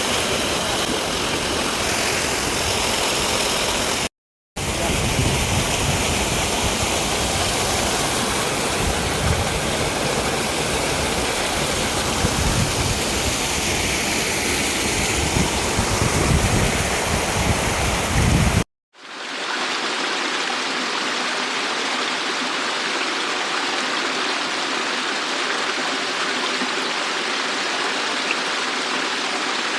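Steady rushing of water from a mountain stream and waterfall, broken twice by sudden cuts; up to the second cut there is a deep rumble under it that then drops away.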